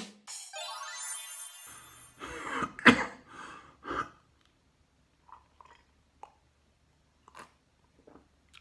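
A short electronic sweep from an intro jingle, then a man coughing and clearing his throat several times over about two seconds, loudest about three seconds in. After that only a few faint small sounds as he drinks from a mug.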